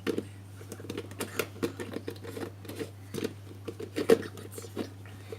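Irregular light taps and scratches, about a dozen in a few seconds, over a steady low hum inside a home-made egg incubator.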